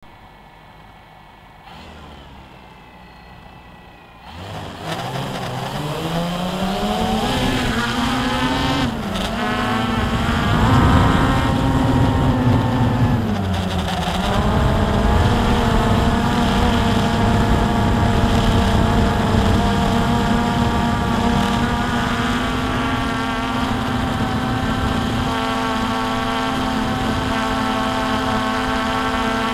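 Drone's electric motors and propellers, heard from its own onboard camera. They spin up suddenly about four seconds in with a rising whine as the drone lifts off, waver in pitch while it climbs and manoeuvres, then settle into a steady hum in flight.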